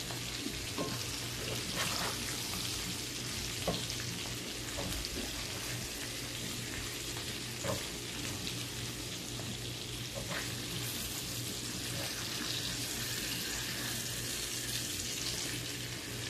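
Food frying in oil in a hot pan: a steady sizzle with a few sharp pops now and then.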